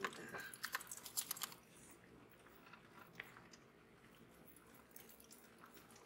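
Faint low rumble inside an old jeep driving slowly along a dirt forest track. A run of crunching clicks fills about the first second and a half, then fades to the quiet steady rumble with a few scattered clicks.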